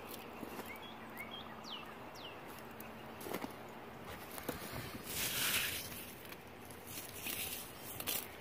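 Outdoor ambience with a few short bird chirps in the first couple of seconds, followed by rustling and handling noises, loudest about five seconds in and again about seven seconds in.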